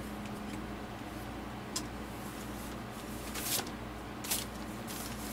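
A steady low hum with four short rustling, hissing handling noises, the longest about three and a half seconds in.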